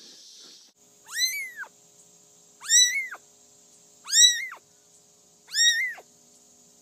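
Domestic cat meowing four times, about a second and a half apart, each meow rising and then falling in pitch.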